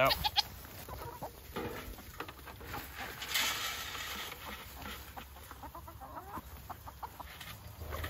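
Nigerian Dwarf goats bleating now and then and chickens clucking around them, with a short rustle about three seconds in as feed is poured from a bucket into pans.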